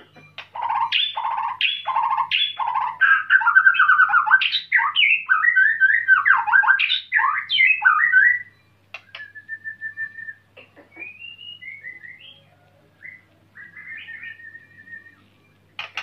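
White-rumped shama singing: a loud, rich run of varied whistles, repeated notes and harsh phrases for about eight seconds, then quieter, scattered short whistles and calls.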